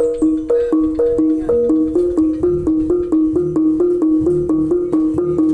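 A set of three small Javanese kenong, bossed bronze-style kettle gongs in a wooden frame, played with two cloth-padded beaters. They run through a fast repeating pattern over three pitches, about five strokes a second, each note ringing briefly.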